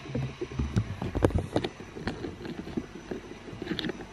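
Handling noise and footsteps as a handheld camera is carried across a room: irregular light knocks and rubbing, with a low rumble for the first second or so.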